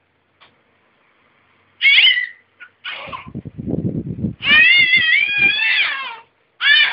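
Domestic cat meowing: a short falling meow about two seconds in, another just after, then one long wavering meow, with low bumping and rustling noises in between.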